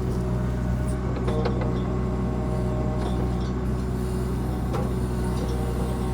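Compact excavator's diesel engine running steadily while the machine carries a tree, with a few short knocks.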